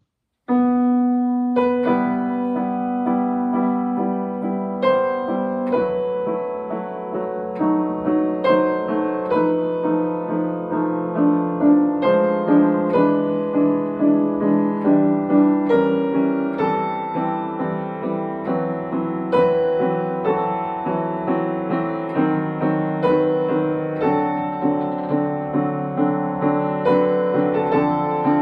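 Upright piano playing a piece of chords with a melody over them, starting about half a second in.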